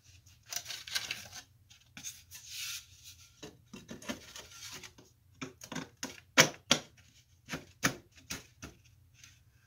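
Wooden drawer parts handled and fitted together by hand: thin wooden bottom panels and a drawer side scraping and rubbing against each other, then a string of sharp wooden knocks and taps in the second half, the loudest about six and a half seconds in.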